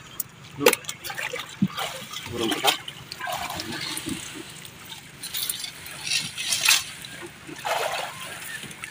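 Water splashing and dripping as a wet fishing net and fish are handled in the water beside a boat, with irregular rustles and light knocks.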